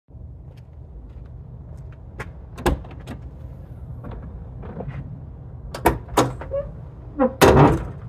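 Split rear tailgate of a Toyota 80-series Land Cruiser being opened: sharp latch clicks as the upper hatch is released and lifted, more clicks about six seconds in as the lower tailgate latch is pulled, then a loud metallic clunk near the end as the lower tailgate drops open onto its stays. A steady low rumble runs underneath.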